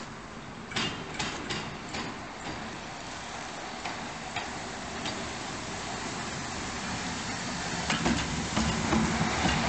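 Ol49 steam locomotive rolling slowly past, tender first: its wheels click sharply several times over rail joints about a second in, over a steady rumble that grows louder near the end as the engine draws level.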